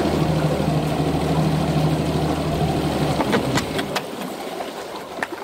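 Bass boat's outboard engine running at low speed with a steady low drone, which falls away about four seconds in, followed by a few sharp clicks.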